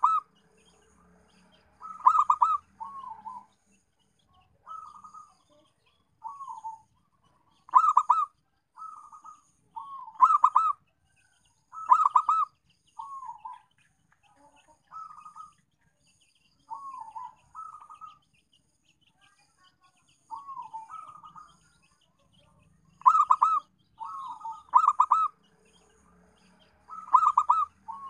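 Zebra dove (perkutut) cooing: phrases of quick, pulsing coos every one to two seconds, with louder bursts among softer phrases.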